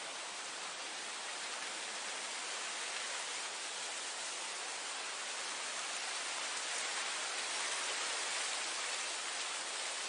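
Steady hiss of wind blowing through grass, swelling slightly about seven seconds in.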